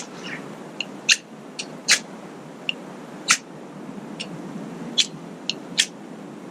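Ferro rod (fire steel) struck with a knife, about a dozen short, sharp scrapes at irregular intervals, throwing sparks to start the fire.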